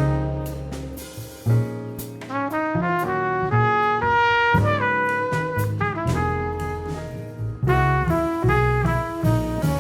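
Jazz quartet playing: a trumpet plays a moving melodic line over piano, bass and drums, with sharp drum and cymbal hits scattered through.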